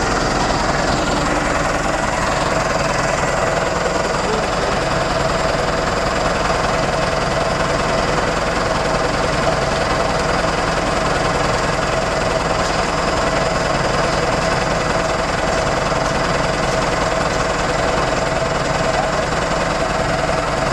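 Vehicle engine idling steadily, with an even, unbroken running sound.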